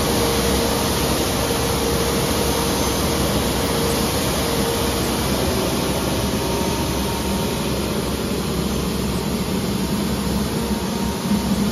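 Bucher Municipal V65 mechanical road sweeper running while it sweeps, its engine and spinning channel brush on the road surface making a steady rushing drone with a faint hum.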